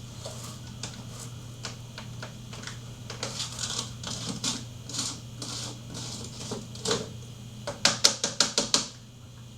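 Scattered clicks and knocks of hard containers being handled, ending in a quick run of about eight sharp, loud clicks near the end.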